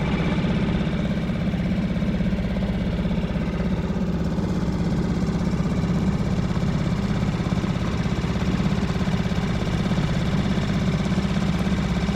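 Small boat motor running steadily at low speed, with an even pulsing drone.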